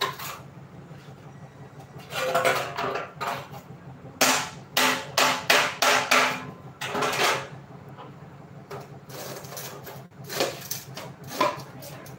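A thin curved steel plate clanging under a series of blows as it is worked straight on a concrete floor. The strikes come in clusters: five or six strong ringing ones in the middle, then lighter knocks near the end.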